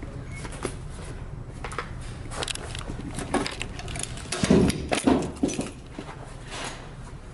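Keys and mail being handled at a metal post office box: scattered light clicks and rustles, with the loudest knocks about four and a half to five seconds in as the small metal box door and its key lock are worked.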